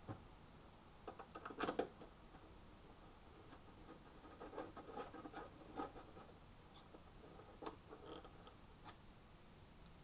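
Faint clicks and scraping as the taillight assembly is handled and fitted back into the body, in short clusters of light knocks about a second in, again around the middle, and briefly near the end.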